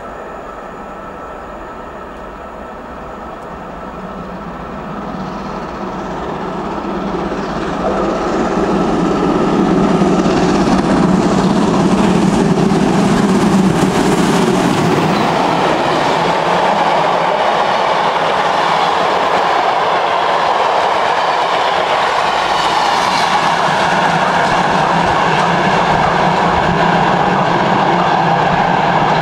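VR Class Hr1 steam locomotive no. 1009 approaching and running through a station with its train. The sound grows louder over the first eight to ten seconds as it nears, then the carriages roll past at a steady high level.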